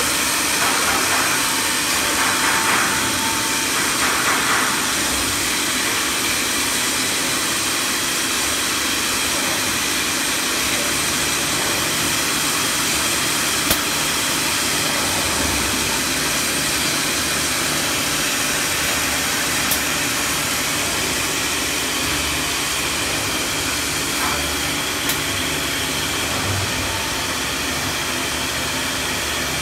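ATC CNC router with a multi-drill boring unit working a particleboard panel: steady machine whine and hiss, louder in two bursts in the first few seconds, with a few sharp clicks later on.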